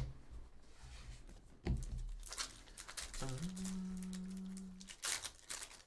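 A baseball card pack wrapper being torn open and crinkled by hand, in short crackling bursts after a sharp tap. A held low hum lasts about a second and a half in the middle.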